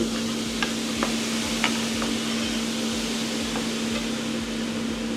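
Food sizzling in a hot frying pan: a steady hiss with scattered small pops and crackles, over a steady low hum.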